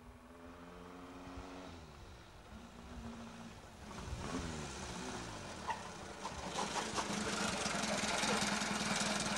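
An engine running, its pitch stepping and then gliding up and down as it revs, with a rushing noise that grows louder from about halfway through.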